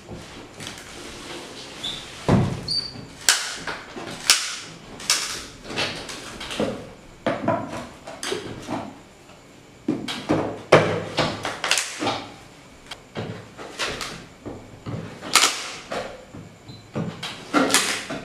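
A cardboard shipping box being cut open: a blade slitting packing tape and cardboard in short, irregular scraping strokes, about one or two a second.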